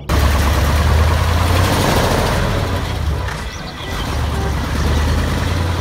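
A real concrete mixer truck's engine running with a steady low rumble, dipping a little about three and a half seconds in and then picking back up.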